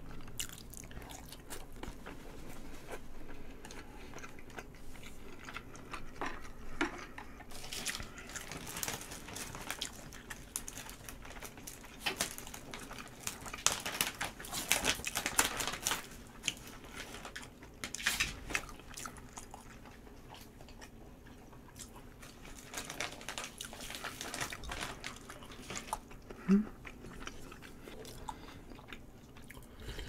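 A person chewing and smacking mouthfuls of soy-marinated raw salmon and rice close to a microphone, in clusters of mouth noises with quieter pauses between. A short low hum of the voice near the end.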